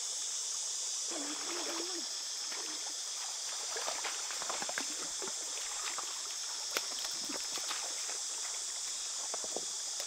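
Hands splashing in a shallow rocky stream and stones knocking together as rocks are turned over and lifted in the water. Trickling water and a steady high-pitched insect drone run underneath.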